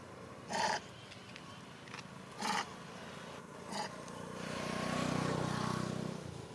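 Three short, high squeals from a baby macaque, then a passing motor vehicle's engine that swells and fades over about two seconds near the end.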